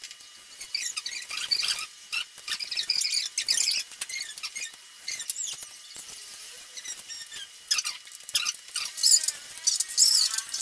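Plastic body shell of a DJI Phantom 4 drone being handled and pressed together: irregular high-pitched scraping and rubbing with short squeaks, busiest near the end.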